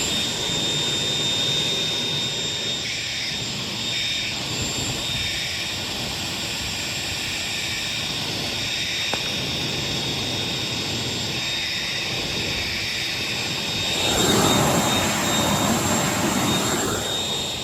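Electric leaf blower running steadily with a high motor whine, its nozzle pushed into an outdoor wood furnace's fan opening to blow loose ash out of the air box under the fan. The rush of air swells louder for a few seconds about fourteen seconds in.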